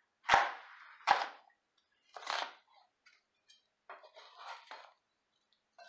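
Chef's knife cutting through an onion and knocking on a plastic cutting board: two sharp knocks in the first second or so, then softer, scattered cutting and handling sounds.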